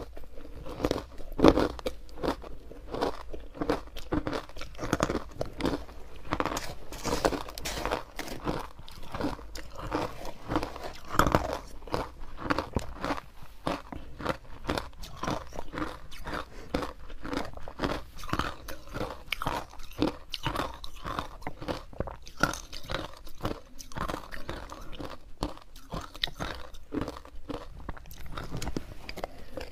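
Ice chunks coated in matcha powder and sesame seeds crunched and chewed close up: a constant run of sharp, brittle crunches, with the loudest bites about a second and a half in and again about eleven seconds in.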